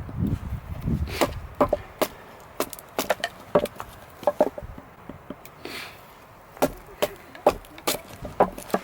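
Bushcraft knife chopping into wood: a series of sharp, irregularly spaced strikes, with a low rumble in the first second or so.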